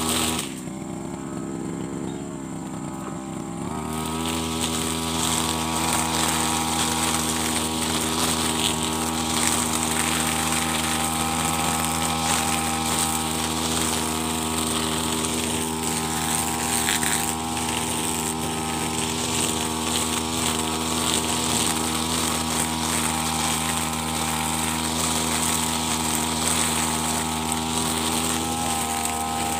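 Brush cutter with a nylon trimmer line running at high revs while cutting grass. About half a second in the engine drops back for a few seconds, then revs up again and runs steadily.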